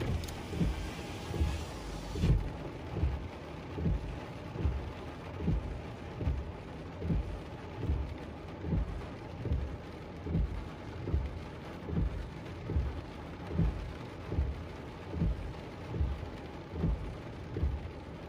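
Rain on a parked car, with a regular low thump about every three-quarters of a second. A brighter hiss cuts off about two seconds in.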